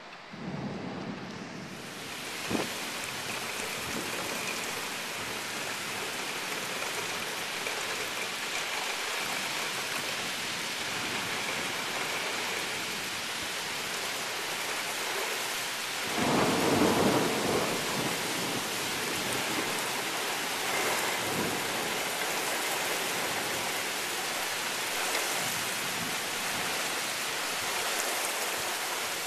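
Heavy thunderstorm rain pouring steadily, with a loud thunderclap about halfway through that lasts a couple of seconds.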